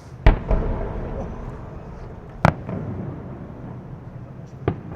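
Booms of giant 600 mm (24-inch) Japanese fireworks shells. First comes a heavy boom with a long rolling tail, then a sharp bang about two seconds later and a weaker one about two seconds after that.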